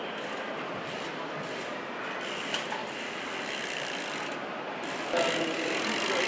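Trials bicycle's rear freewheel hub ratcheting as the bike coasts, over a hall's background noise, with one sharp knock about two and a half seconds in.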